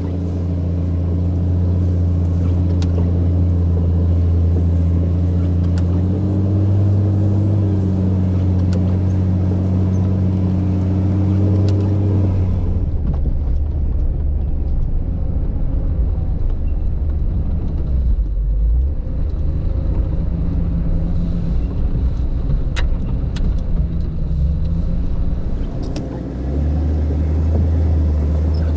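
Off-road 4x4's engine running steadily while driving a snowy trail, its pitch rising a little about six seconds in. About twelve seconds in the steady note gives way to a rougher low rumble, and the steady note returns near the end.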